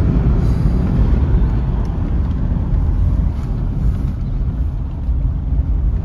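Mahindra Bolero Neo driving, a steady low rumble of engine and road noise.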